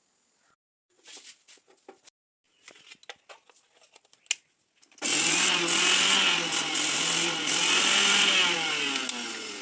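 Faint handling clicks, then about five seconds in a small electric motor starts and runs loudly at high speed, its whirring pitch sliding up and down.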